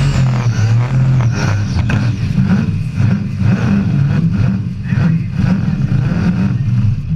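Supercharged burnout car's engine held at high revs during a burnout, its pitch jumping up about a second in and then surging up and down about twice a second.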